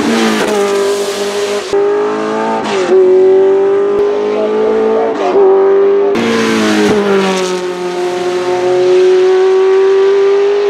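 Porsche 908/3's three-litre flat-eight racing engine running at high revs, loud, with several brief dips and jumps in pitch as it changes gear, then holding a long steady high note that rises slightly near the end. The sound changes abruptly at a few points where separate passes are cut together.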